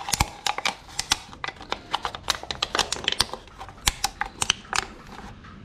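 Irregular sharp clicks and light knocks of a funnel being handled and fitted into a motorcycle's radiator filler neck, ready for coolant to be poured.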